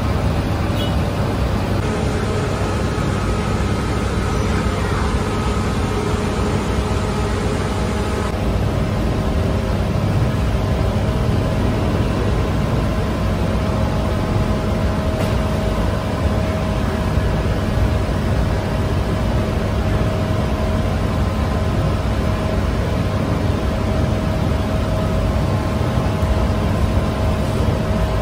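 Steady drone of bakery machinery: a low hum with a rushing noise and a faint steady whine over it, unchanging throughout.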